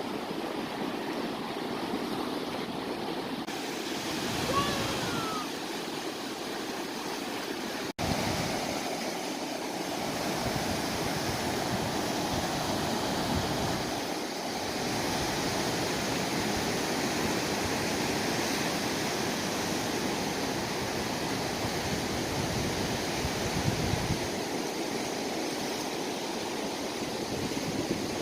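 Sea waves washing onto the shore, a steady surf noise with some wind on the microphone. A short pitched call rises briefly about five seconds in.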